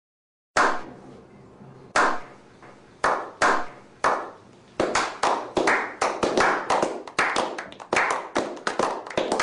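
A slow clap: single hand claps spaced about a second apart, quickening from about five seconds in into faster, denser clapping.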